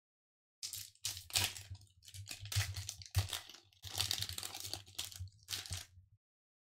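Pokémon Vivid Voltage booster pack wrapper crinkling and tearing as it is opened by hand, in a run of irregular rustles and crackles that starts about half a second in and stops about six seconds in.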